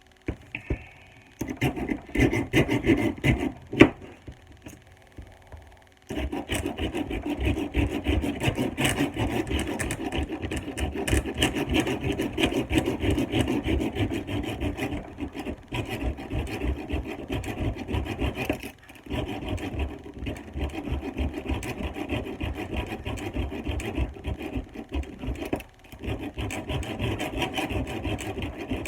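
Serrated knife blade drawn repeatedly through a block sharpener, a scraping, rasping sound of steel on the sharpener. A few separate strokes come first, then quick strokes run on steadily from about six seconds in, with a couple of brief pauses.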